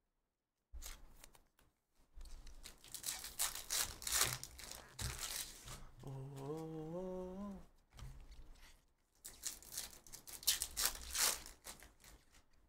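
Topps Chrome trading cards and their foil pack wrapper being handled: crinkling, rustling and the slide of glossy cards as a pack is worked open and flipped through, in quick runs of rustle. About six seconds in, a voice briefly hums a wavering note.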